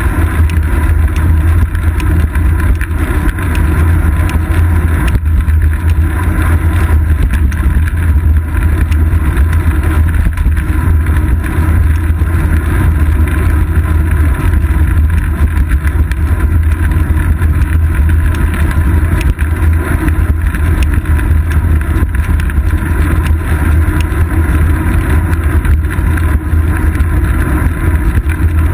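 Steady, loud low rumble of wind buffeting and road vibration picked up by a GoPro Hero 2 in its housing on the seat post of a moving bicycle.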